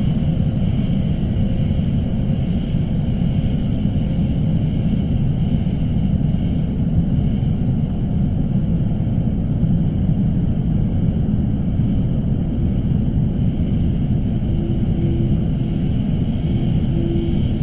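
Suspense ambience bed: a steady low rumble with runs of quick, high-pitched chirps repeating over it. A faint pulsing hum enters near the end.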